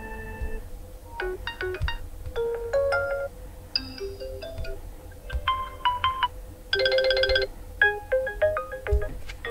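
OPPO A18 smartphone playing a string of different ringtone previews through its speaker. Each short melodic chime tune is cut off after about a second and replaced by the next, as the ringtones in the list are tried one after another.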